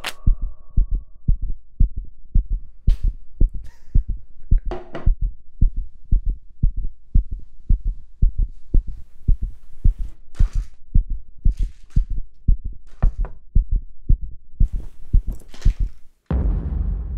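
Fast, steady heartbeat thumping, about two to three low beats a second, with faint swishing swells above it. Near the end the beat cuts off and a loud low boom follows and fades.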